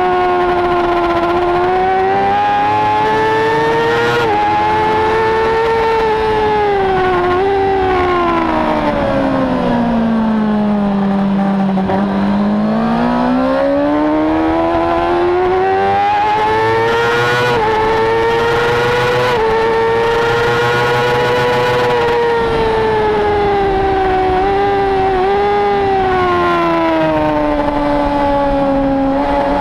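Racing motorcycle engine under hard riding, its pitch climbing with brief dips at gear changes. It falls steeply to a low note about a third of the way through as the bike slows for a corner, rises again under acceleration, and drops once more near the end.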